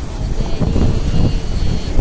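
Ocean surf washing onto a beach, heard as a loud, steady rumble with wind buffeting the microphone. A faint high tone sounds in the background from about half a second in until near the end.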